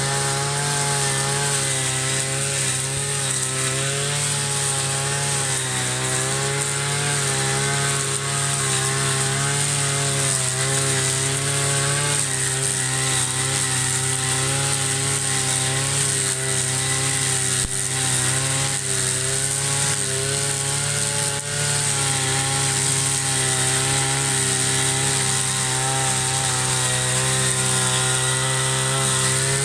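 Petrol brush cutter engine running steadily while cutting tall grass and weeds, its pitch wavering gently up and down as the load changes.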